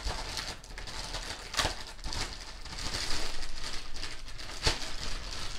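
Clear plastic bag crinkling and rustling as the boxed unit inside it is handled and lifted out, with two sharper crackles, one about a second and a half in and one near the end.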